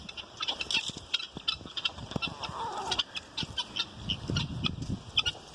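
A mixed flock of chickens, guinea fowl and ducks calling over each other: a dense run of short, sharp, high calls, with some lower calls joining about two-thirds of the way through.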